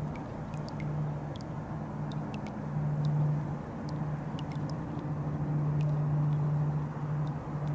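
Steady low hum over a rushing background noise, swelling and easing slightly in loudness, with faint short high ticks scattered through.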